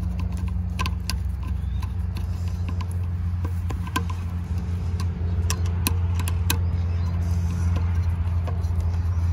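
A steady low mechanical hum, like an engine running, under scattered small sharp metallic clicks from a screwdriver working the terminal screws on a well pump pressure switch.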